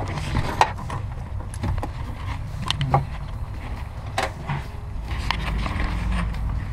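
Scattered clicks, knocks and rustles of hands handling hoses and wiring inside a car's footwell, over a low rumble that becomes steadier and a little louder about five seconds in.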